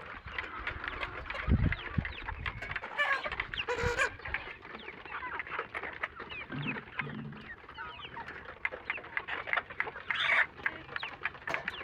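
A flock of chickens clucking and chirping continuously, many short falling calls overlapping. There are two low thumps, about a second and a half in and again near four seconds.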